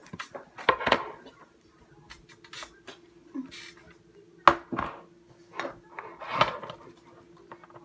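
Clear glue slime being handled and squished by hand, giving a string of sharp pops and clicks, over a steady low hum.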